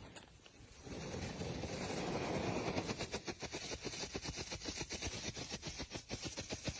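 A lit Diwali firecracker hissing as it catches about a second in, then going off in a quick, even run of sharp crackles.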